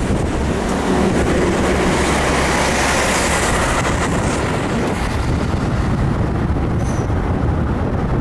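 Steady road and engine noise of a moving road vehicle heard from inside, with wind rushing past the microphone; the rush swells about two to four seconds in while passing close alongside a truck.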